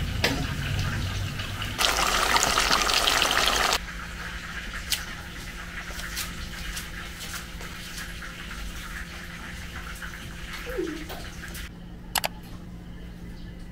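Water running from a tap for about two seconds, then a steady low hum from an electric fan with a few light clicks.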